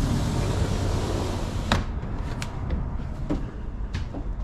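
Footsteps and door handling while climbing into a travel trailer: a few sharp knocks and clicks over a steady low rumble.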